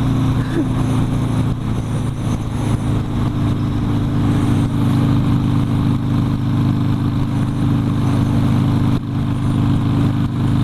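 Harley-Davidson Sportster V-twin engine running steadily at road speed, heard from the rider's seat with wind rush over the microphone; the engine note drops briefly once near the end.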